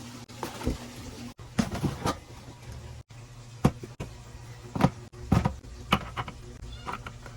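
Food containers and packages being set down and arranged on fridge shelves: a string of separate knocks and clacks over a low steady hum.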